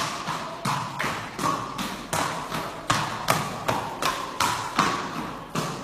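A horse's hoofbeats on a hard indoor floor in a quick, even rhythm of about four to five strikes a second.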